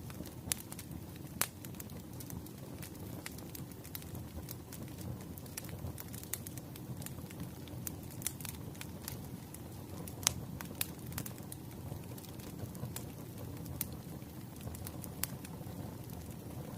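Wood fire burning in a fireplace: irregular sharp crackles and pops over a low, steady rumble of the flames, with the loudest pop about ten seconds in.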